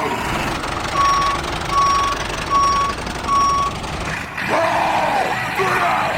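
A reversing-alarm beeper sounding four evenly spaced beeps, about one a second, over steady machine noise.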